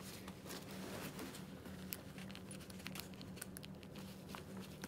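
Faint rustling of a motorcycle jacket's mesh liner and the airbag vest inside it being handled, with scattered small ticks, over a low steady hum.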